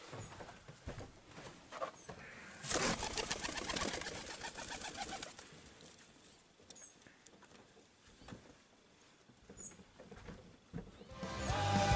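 Wood pigeons flapping their wings, a loud run of rapid wingbeats a few seconds in, with a few brief high chirps from a small bird scattered through. Music comes in near the end.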